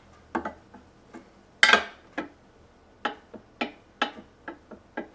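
A square rocking on the Bosch RA1181 router table's top, clicking against it in irregular taps, about a dozen over a few seconds with one louder click about one and a half seconds in. The rocking chatter is the sign of a tabletop that is warped, not flat, around the grooves.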